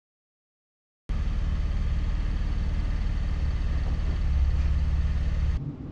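Car engine running steadily with a low, pulsing note; it starts abruptly about a second in, after a stretch of dead silence, and cuts off just before the end.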